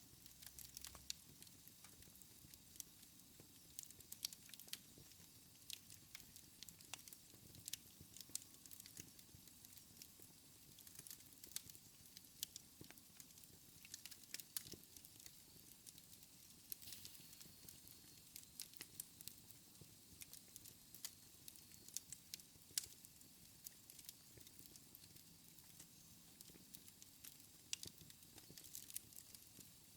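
Wood fire in a fireplace crackling: frequent, irregular sharp pops and snaps over a soft steady rush of the flames, all faint.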